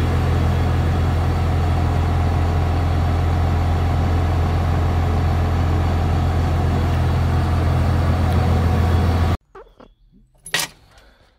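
Massey Ferguson 6480 tractor's diesel engine idling steadily with a deep hum, stopping abruptly about nine seconds in. A single sharp knock follows a second later.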